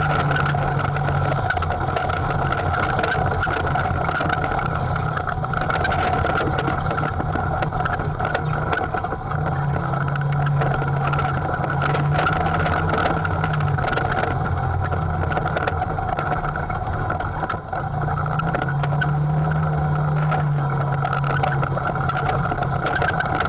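Side-by-side UTV driving along a dirt trail: its engine running steadily with a constant drone, the note rising a little for a few seconds around a third of the way in and again later. Frequent small clicks and knocks run throughout.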